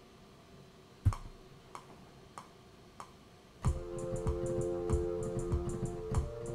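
Software metronome count-in of four evenly spaced clicks at about 96 beats a minute. About three and a half seconds in, a programmed drum beat with kick and fast hi-hat ticks starts, with a sustained keyboard chord played over it as the piano part is recorded.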